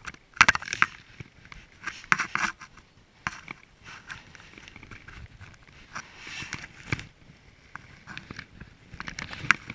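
Close handling noise: irregular rustling, scraping and clicks as a landing net is worked in bankside grass and a small brown trout is lifted out by hand, the loudest clatter just under a second in and again around two seconds in.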